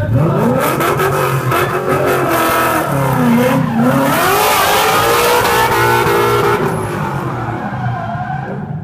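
Ford Mustang drift car's engine revving hard, its pitch rising and falling, dipping about halfway through and climbing again, with tyre squeal and screech as it slides. The sound fades near the end as the car moves away.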